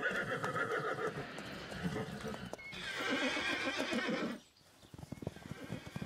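Lipizzaner horses whinnying: two long, shrill calls, one at the start and another about three seconds in, as mares and foals call after being separated for weaning. After a short break comes a quick, uneven patter of hoofbeats from a group of foals galloping.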